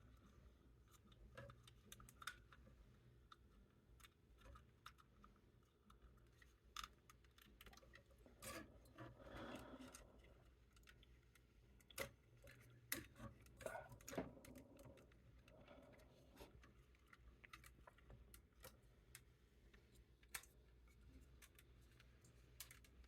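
Faint, scattered clicks and taps of plastic model-kit parts being handled, with a busier stretch of rustling clicks about a third and halfway through.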